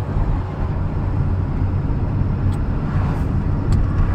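Cab noise of a small truck driving along a road: a steady low rumble of engine and tyres.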